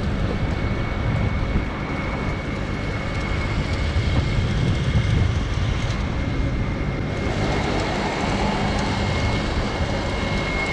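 A train running on the line: a steady rumble with a thin constant whine over it, the hiss growing brighter about seven seconds in.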